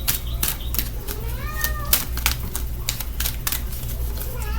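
A cat meowing, with two short meows, one about a second in and one near the end, over scattered sharp clicks.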